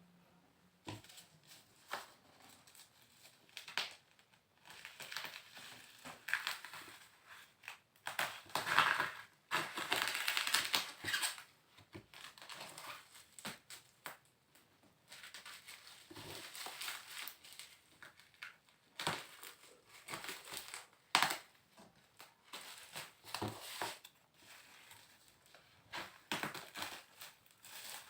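Packaging of a gaming PC case being opened and handled by hand: irregular crinkling and rustling with scattered clicks and knocks, loudest about eight to twelve seconds in.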